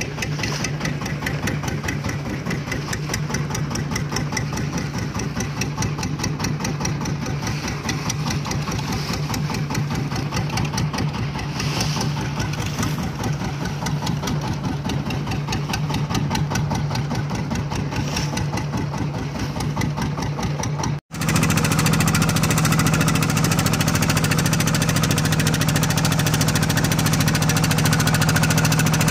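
Fishing boat's engine running steadily with a fast, even beat. After a brief break about two-thirds of the way through, it comes back louder.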